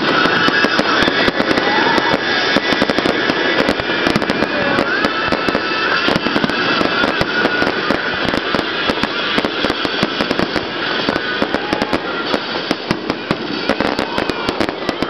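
Fireworks display: a dense, continuous run of rapid pops and crackles from aerial shell bursts and low fountains firing together.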